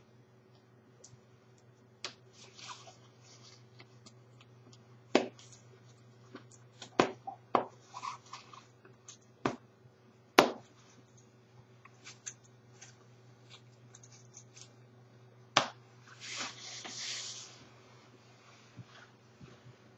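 Nylon-shelled padded CFL winter parka: several sharp snaps as its press-stud fasteners are pulled open one after another, with the shell fabric rustling between them. Near the end comes a longer swishing rustle of the nylon as the wearer turns.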